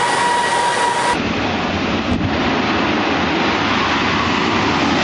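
Loud, steady engine and wind noise of a racing dragster on the drag strip, with a thin high tone that stops abruptly about a second in.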